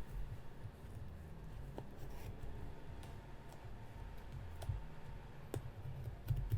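Long false fingernails clicking and scratching against a package while fumbling to open it, a few sharp clicks scattered among dull handling bumps.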